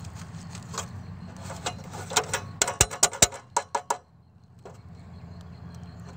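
Fingers picking and tapping at the flaking finish of a car wheel rim: a run of sharp clicks and scrapes, thickest in the middle, that stops about four seconds in.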